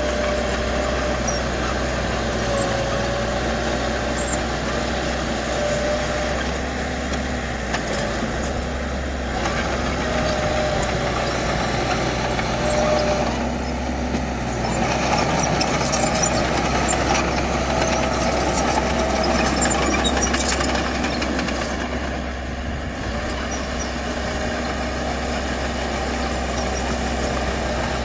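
Diesel engine of heavy earthmoving machinery running steadily under work, with a thin whine that comes and goes and a louder stretch about halfway through.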